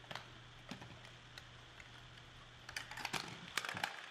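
Scattered plastic clicks and knocks from handling a DeWalt DCD771 cordless drill and sliding out its 20V Max battery pack, with a quick cluster of clicks about three seconds in.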